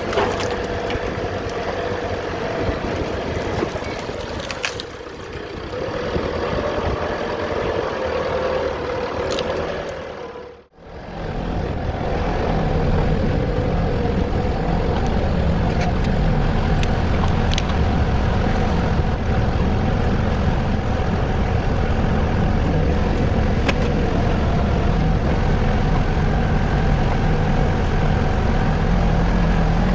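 Engine running steadily. About ten seconds in, the sound drops out for a moment and comes back heavier and deeper, running on steadily.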